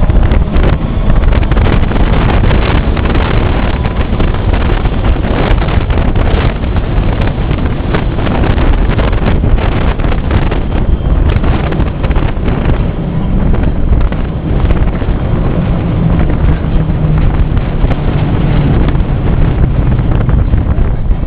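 Vintage Lisbon tram running along street track, heard from inside its cab: steady wheel-on-rail rumble with constant rattling and clicking, and wind on the microphone. A low hum comes in near the end.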